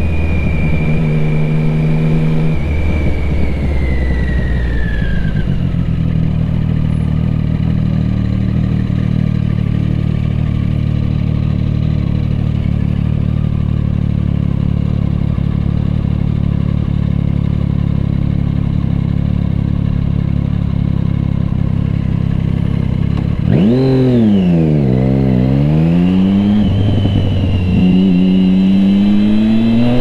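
Triumph Street Triple 675R's three-cylinder engine through an Akrapovic exhaust, dropping to a steady idle while stopped. About three-quarters of the way through it pulls away, the revs rising and falling twice, then climbing again near the end.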